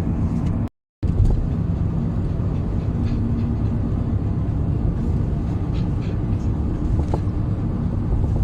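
Steady engine and road rumble of a moving car, heard from inside the cabin, with a low hum running through it; it drops out for a moment about a second in.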